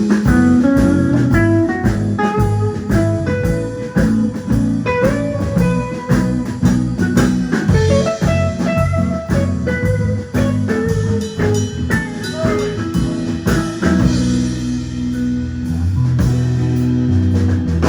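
Blues band playing an instrumental break between sung verses: guitar, bass and drum kit, with a busy melodic lead line.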